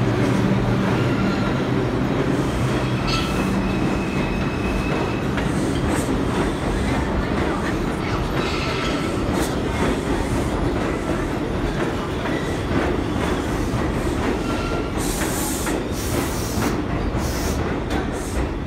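New York City subway train pulling out of the station and running into the tunnel: a steady rumble with a low motor hum at first, wheels clicking over rail joints, and brief thin wheel squeals. Several short, high hissing squeals come near the end.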